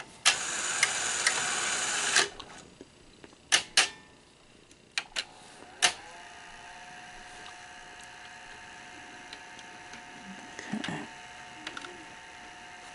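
Sony SL-100 Betamax VCR's tape-loading mechanism whirring for about two seconds, followed by a handful of sharp mechanical clicks as the cassette is threaded. The machine then settles into a steady hum as the head drum and transport run.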